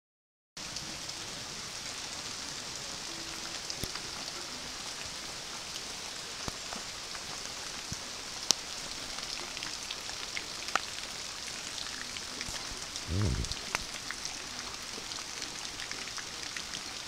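Steady rain falling outdoors, a continuous hiss with many scattered sharp drip ticks. A short low rumble comes in once, late on.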